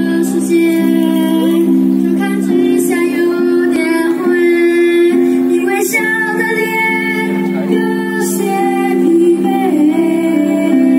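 Youth choir singing, with two young soloists, a boy and a girl, carrying the melody over long held chords underneath.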